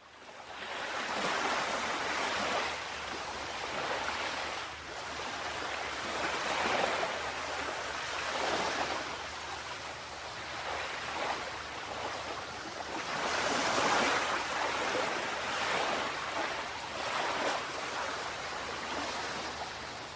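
Ocean waves washing onto a shore, the surf swelling and easing every few seconds. It fades in at the start.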